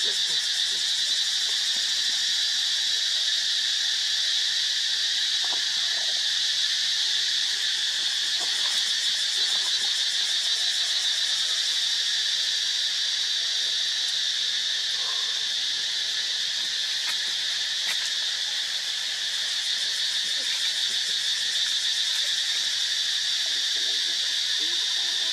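Steady insect chorus: a dense, high-pitched buzzing trill that holds at an even level without a break.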